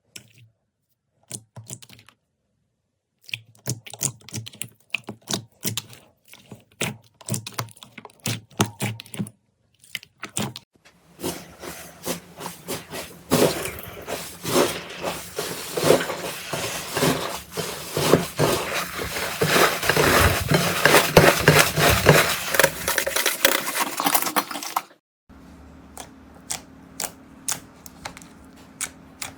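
Slime being squished and stretched by hand, making sticky clicks and pops. The first ten seconds hold sparse clicks with short pauses. From about eleven seconds in the sound builds to a dense, loud crackling. Near the end it cuts to another clip, where scattered clicks sit over a low steady hum.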